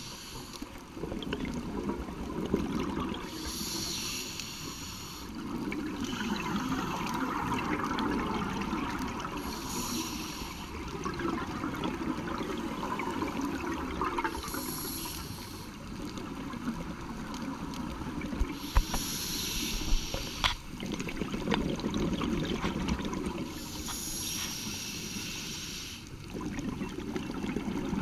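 Scuba regulator breathing underwater: a hiss of inhalation through the regulator every five to six seconds, each followed by a low gurgling rush of exhaled bubbles. A few sharp clicks come about two-thirds of the way through.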